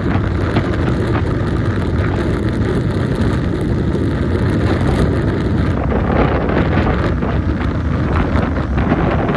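Strong wind gusting across the microphone, a continuous heavy buffeting noise strongest in the low range.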